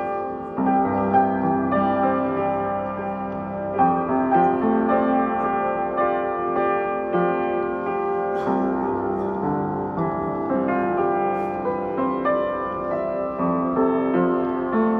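Background piano music: a slow run of held notes and chords.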